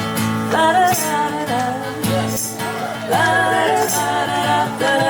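Live band playing a country-rock song: a singer's voice over guitar and bass.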